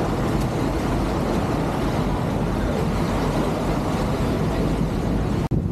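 Steady low rumble of a lake passenger boat's engine with water churning around the hull as it pulls away from a pier. The sound breaks off for an instant near the end.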